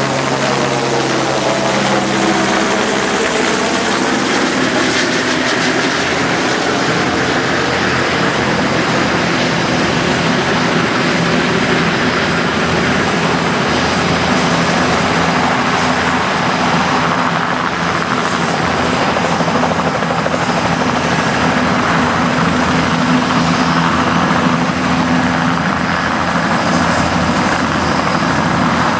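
Turbine helicopters, chiefly Bell 206B-3 JetRangers, running on the ground with rotors turning, a steady loud blend of blade beat and turbine whine. In the first few seconds the sound sweeps in pitch as a helicopter moves close by, and near the end one lifts off.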